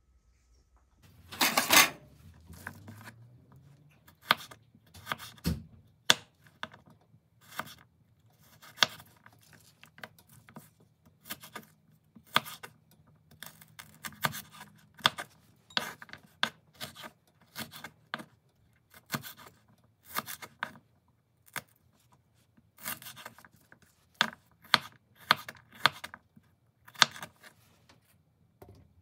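Kitchen knife slicing through crisp Chinese kale stems on a wooden chopping board: irregular crunchy cuts, each ending in a tap of the blade on the wood, about one or two a second. The loudest is a longer scraping stroke about a second and a half in.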